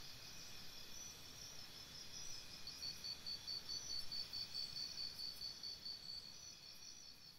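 Faint chirping of insects: several steady high trills at once, one of them pulsing about four or five times a second through the middle, over a low background hiss. The chirping grows quieter near the end.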